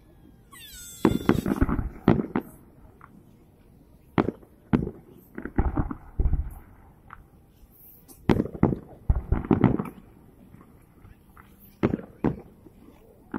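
Fireworks display: aerial shells bursting in irregular volleys of sharp bangs, several a second at their busiest, with short lulls between. The heaviest volleys come about a second in and again about eight seconds in.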